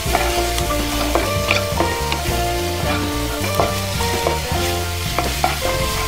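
Capsicum strips, garlic and green chilli sizzling in oil in a nonstick wok while a wooden spatula stirs them, scraping and tapping against the pan. Background music plays underneath.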